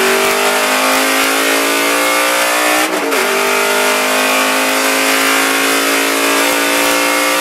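Aston Martin Vantage V8 GT4 race car's V8 engine at full throttle, rising steadily in pitch through the gears. About three seconds in, an upshift drops the pitch sharply, and it then climbs again.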